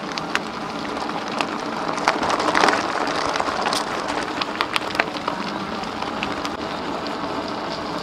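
Bicycle tyres rolling over a loose gravel road: a steady crunch with many small stone clicks and pops.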